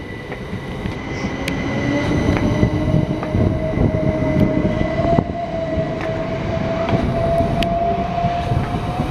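Southern Class 377 Electrostar electric multiple unit pulling away along the platform: its traction motor whine rises slowly and steadily in pitch as it gathers speed, over a dense wheel-and-rail rumble with a few sharp clicks. A fainter steady high whine sounds through the first half.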